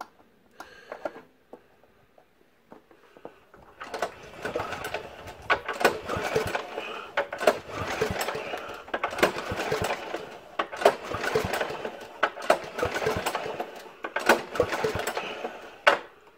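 Briggs & Stratton 208 cc snow blower engine cranked over by its recoil starter with the spark plug out, so it spins freely and cannot fire. The cranking makes a rapid clattering whir, with a surge about every second and a half from each pull, starting about four seconds in.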